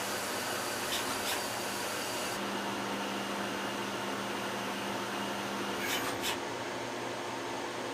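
Citizen M32 CNC Swiss-type lathe running: a steady machining noise with a low hum that comes in about two and a half seconds in and drops out near six seconds. A few light clicks are heard, two early and two near the end.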